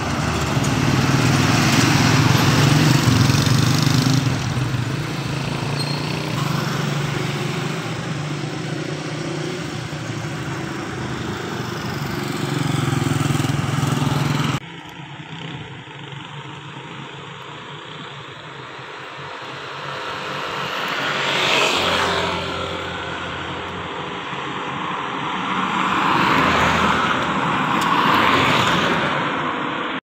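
Road traffic: motorcycles and a motorcycle tricycle running close by with a steady low engine hum. About halfway through the sound cuts abruptly to quieter traffic, with two vehicles swelling past, one about two thirds of the way through and one near the end.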